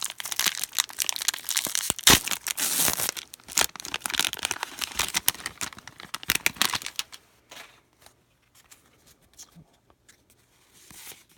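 Wrapper of a pack of basketball trading cards being torn open and crinkled, a dense crackly rustle for about seven seconds, then only a few faint clicks of handling.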